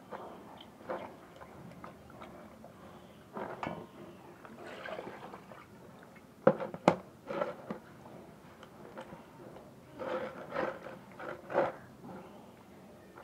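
Knife cutting raw chicken into smaller pieces: irregular crunches and knocks of the blade through the meat, with two sharp knocks about halfway and a quick run of strokes near the end.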